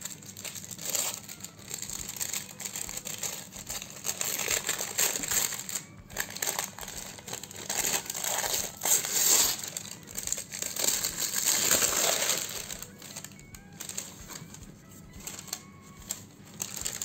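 Gift-wrapping paper crinkling and tearing as a wrapped book is unwrapped by hand, loudest through the middle, with faint background music underneath.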